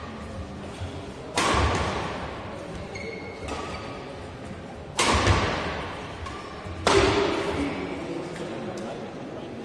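Three loud, sharp racket strikes on a badminton shuttlecock during a doubles rally, about a second and a half in, near the middle and again two seconds later. Each crack is followed by a long echo in the hall, with fainter hits in between.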